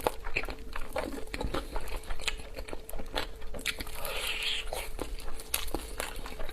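Someone biting into and chewing crispy chicken: irregular crunching and crackling bites.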